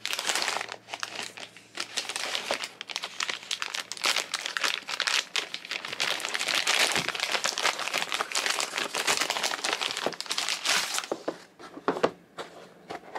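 Plastic poly mailer crinkling and rustling as hands pull it open, a dense crackle that thins to a few scattered clicks near the end.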